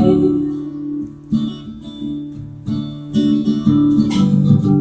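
Acoustic guitar strummed live in an instrumental break between sung lines, with a sung note fading out as it begins. The strumming is softer at first and grows louder about three seconds in.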